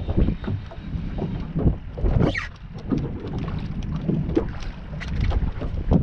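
Gusty wind buffeting the microphone, with choppy water slapping and knocking against the hull of a small boat.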